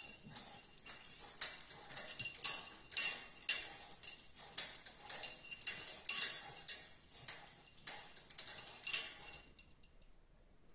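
Beagle puppy scrabbling and pushing under a wrought-iron plant stand after a ball: a fast, irregular run of clicks and knocks that stops shortly before the end.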